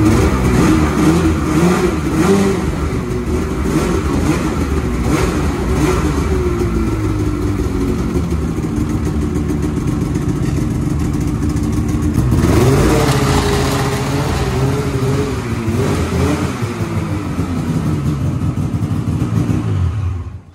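2012 Polaris RMK 800 snowmobile's two-stroke twin engine running with repeated short revs, the pitch rising and falling as the sled is ridden off the trailer, with a bigger rev about two-thirds of the way in.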